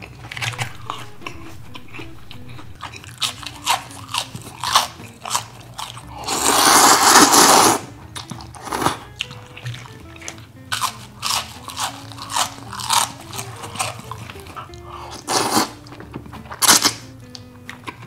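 Crisp crunching bites and chewing of deep-fried breaded shrimp and squid rings, with one longer, louder crackling crunch about six seconds in, over background music.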